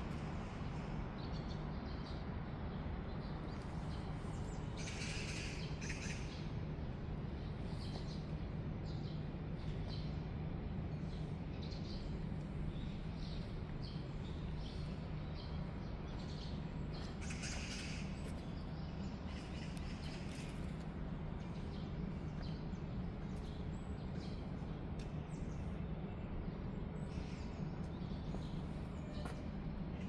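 Birds chirping in short, scattered calls, with clusters about five seconds in and about seventeen seconds in, over a steady low rumble of background noise.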